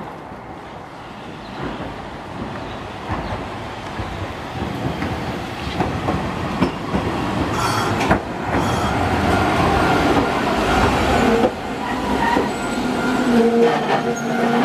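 Hankai Tramway tram car 607 approaching and pulling in beside the platform. Its wheels clack over rail joints and points, growing louder as it nears, with squealing wheel or brake tones near the end as it slows.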